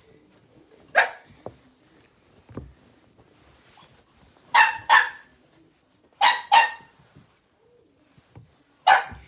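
A dog barking: one bark about a second in, then two quick pairs of barks, and one more bark near the end.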